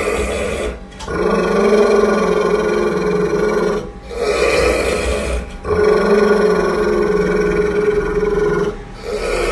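Pit bull growling with teeth bared over a raw meat bone: long, steady growls broken four times by brief pauses for breath. It is a warning growl, the dog guarding its food from its owner.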